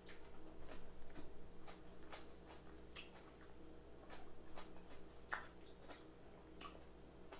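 Crab legs being eaten: faint, irregular clicks and cracks, about two a second, of the shells being broken and picked apart.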